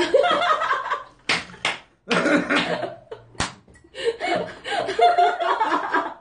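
People laughing hard in bursts, with one sharp smack about halfway through.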